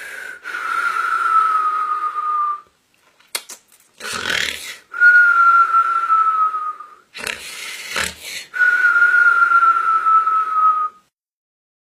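Mock snoring of the whistling kind: three long whistled breaths out, each sliding slightly down in pitch, with rough snorting breaths in between.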